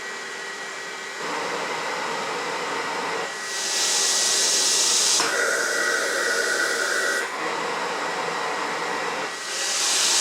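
Philips Respironics CoughAssist E70 cough-assist machine running its automatic cycle, its blower switching between insufflation and exsufflation phases of about two seconds each. A loud rush of air comes twice, a few seconds in and again near the end.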